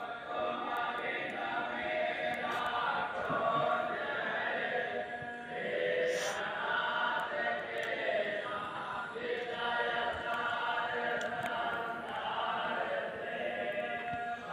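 A group of voices chanting together in a continuous sung chant, held lines with no pauses.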